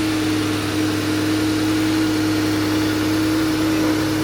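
Ford F-150 pickup with the Coyote 5.0 V8 idling steadily, an even hum with no revving.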